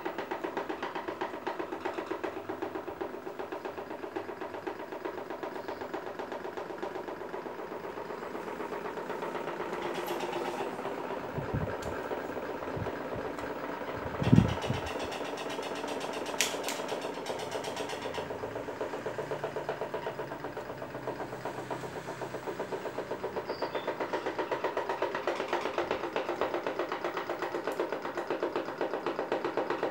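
Several electric desk fans running together: a steady motor hum with a fast, even rattle. A few low thumps about halfway through, one of them the loudest sound, then a sharp click.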